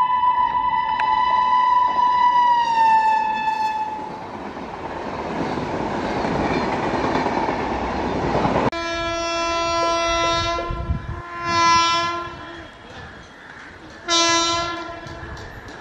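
Indian Railways WAP-7 electric locomotive horn, held and dropping in pitch about three seconds in, then the rush and wheel clatter of a train's coaches rolling past. After a sudden cut, another WAP-7's lower-pitched horn sounds a long blast, followed by two shorter, louder blasts near the end as the locomotive approaches.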